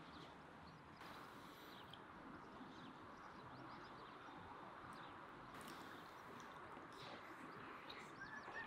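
Near silence: faint room hiss with a few soft clicks in the second half.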